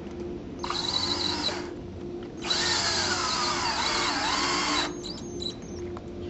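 Power drill driving a screw into the wooden joint of a shutter frame in two runs: a short burst of about a second, then a longer run of over two seconds, the motor's pitch sagging and recovering as the screw bites into the wood.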